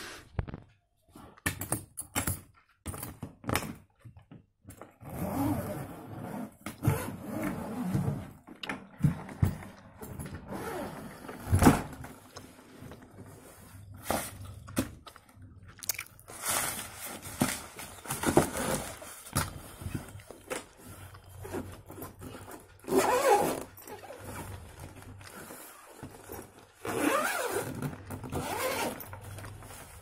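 A new hard-shell trolley suitcase being handled and opened: clicks at its combination lock and zipper pulls, the zip scraping open, and the shell and fabric lining scraping and rustling. One sharp knock about twelve seconds in is the loudest sound.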